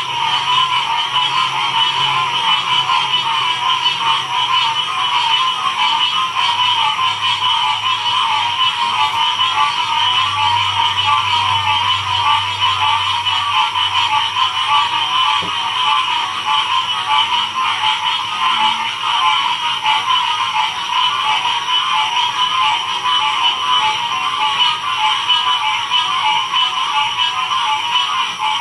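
Many frogs calling at once in a dense, steady chorus, a continuous mass of overlapping calls in a mid and a high register.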